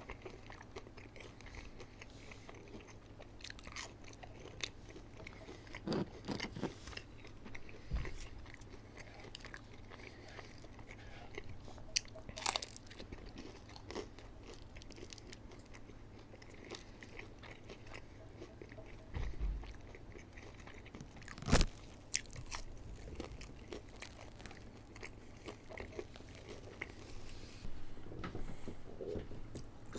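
Chewing and biting of McDonald's food, with scattered small mouth clicks and a few sharper knocks. The loudest knock comes about 21 seconds in.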